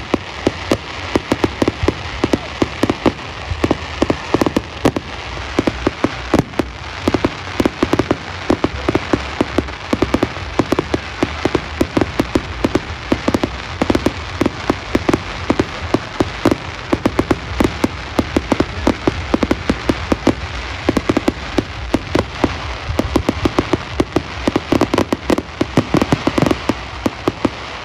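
Aerial fireworks going off in a dense barrage: a rapid, unbroken stream of sharp pops and crackling bursts, many each second, over a low rumble.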